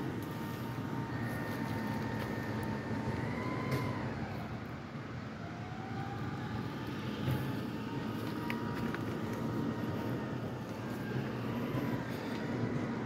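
Hybrid Mack MRU rear-loader garbage truck working a dumpster pickup: a steady whine over a low rumble. About four seconds in the whine rises and drops away, then climbs back up.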